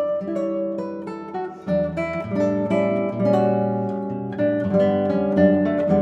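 Solo nylon-string classical guitar played fingerstyle: a plucked melody over ringing arpeggiated notes, with deeper bass notes coming in about two seconds in.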